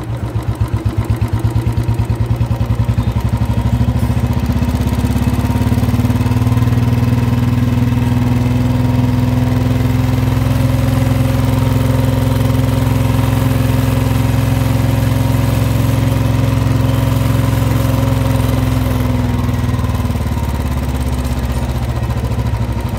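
Royal Enfield Bullet 350's single-cylinder four-stroke engine idling with separate firing beats. Its speed rises over the first few seconds as the carburettor's throttle stop screw is turned in, holds at a fast idle, and drops back near the end.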